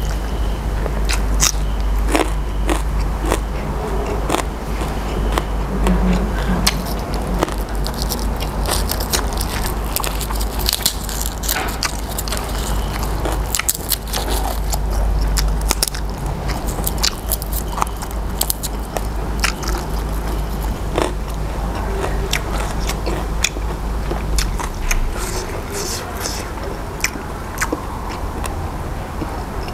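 Close-up eating sounds: a man biting and chewing crisp raw vegetables, with many crunches and wet mouth clicks throughout.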